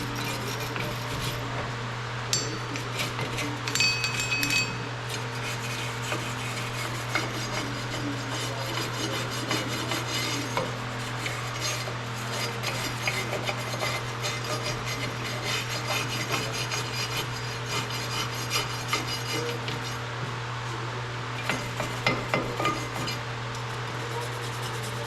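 Hand scraping and rubbing on metal, with scattered metallic clinks and knocks, over a steady low hum.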